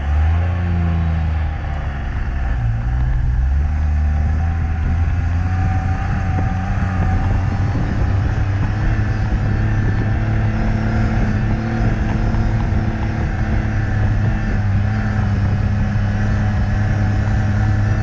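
Classic trials car's engine driving up a muddy track under load. The engine note rises, dips and rises again in the first few seconds, then runs at a steady pitch.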